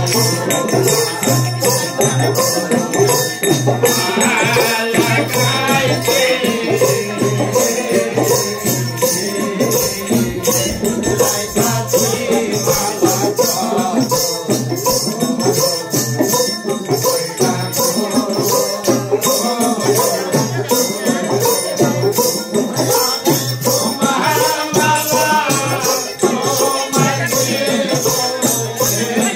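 Group of men singing or chanting together over a steady, fast rhythm of shaken or struck hand percussion. The voices come up strongest a few seconds in and again near the end.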